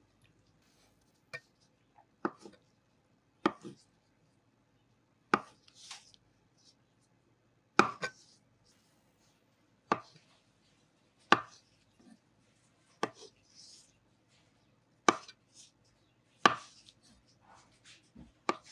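Knife chopping marinated champignon mushrooms on a wooden cutting board: sharp knocks of the blade on the wood, about a dozen, unevenly spaced one to two seconds apart.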